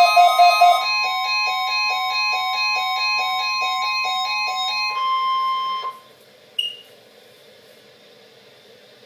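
Electronic emergency alert tones. Loud pulsing beeps change about a second in to a steady tone under rapid beeps, about four a second; the steady tone then runs on alone and cuts off suddenly about six seconds in. After that comes faint hiss with one short high blip.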